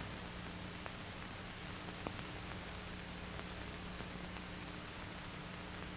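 Steady hiss and low hum of an old film soundtrack, with a few faint crackle clicks, one a little under a second in and a sharper one about two seconds in.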